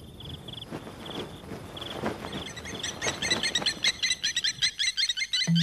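Crickets chirp in short, evenly pulsed trains. From about three seconds in, a dense chorus of rapid, high chirps builds over them. A low music note comes in at the very end.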